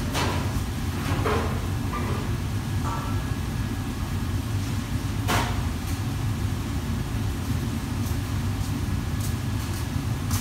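Steady low roar of a commercial kitchen's gas wok range, with a few brief sharper noises on top, the loudest about five seconds in.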